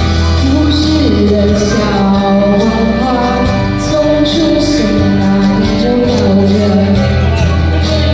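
A song with a singing voice carrying a melody over a held bass line and accompanying instruments.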